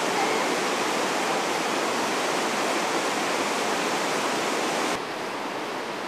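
Rushing whitewater of river rapids, a steady loud churning that drops suddenly to a quieter level about five seconds in.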